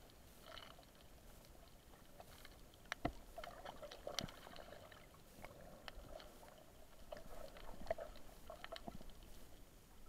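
Faint, muffled underwater ambience heard through a submerged camera, with scattered sharp clicks and a few knocks, the strongest about three, four and eight seconds in.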